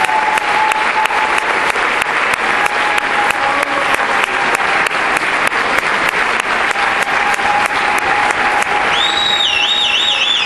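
Audience applauding, the claps falling into an even rhythm of about three a second. About nine seconds in, a high warbling whistle rises over the clapping.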